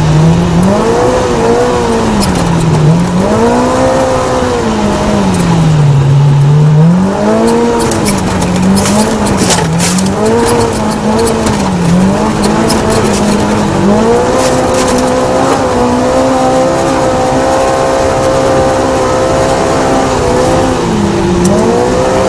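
Off-road desert race car engine running hard, its pitch rising and falling again and again as the throttle comes on and off, then holding a steady high pitch from about two-thirds of the way in. Scattered sharp knocks and rattles come through in the middle stretch.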